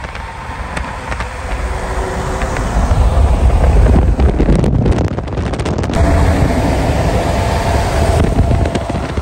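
Heavy wind rush and buffeting on the microphone over the rumble of road noise from a vehicle moving at highway speed, louder from about three seconds in.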